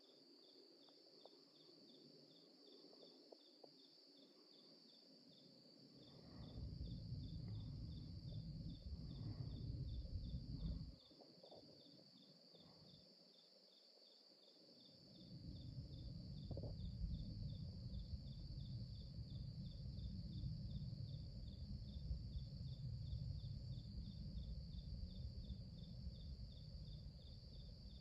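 A steady high-pitched insect chorus with a regular chirp about twice a second. A louder low rumble comes in about six seconds in, cuts off around eleven seconds, and returns about fifteen seconds in.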